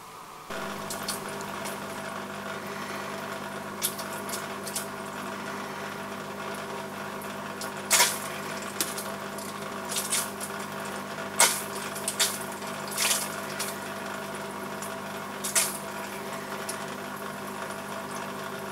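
Steady hum of a water pump in a tank, starting abruptly just after the start. Water splashes sharply now and then, the loudest about 8 and 11.5 seconds in.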